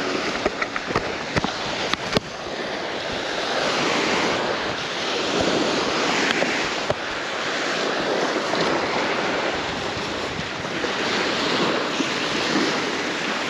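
Small waves washing onto a beach, a steady wash that swells and eases every few seconds. A few light clicks near the start.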